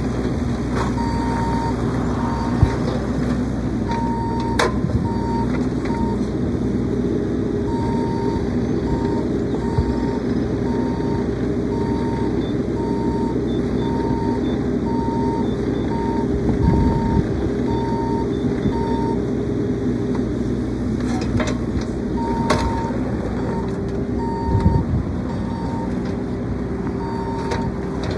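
Bobcat E26 mini excavator's diesel engine running steadily under hydraulic load while the machine works, with its travel alarm sounding a short high beep about once a second that pauses for a few seconds partway through. A few sharp clanks rise above the engine.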